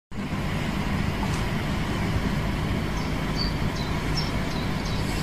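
Steady mechanical rumble of running machinery with a low hum, and a few short high chirps from about three seconds in.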